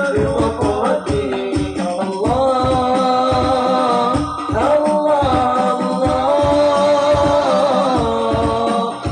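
Male voices singing a sholawat devotional song together through microphones and a PA, drawing out long gliding notes, over frame drums (rebana) keeping a steady beat.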